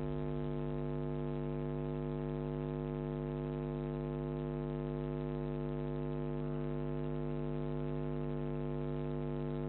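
Background music held on one steady synthesizer drone: a single low sustained tone with many overtones, unchanging in pitch and level.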